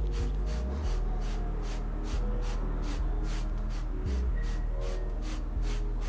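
Background music with a steady bass, over quick strokes of a soft brush on short hair, about four a second.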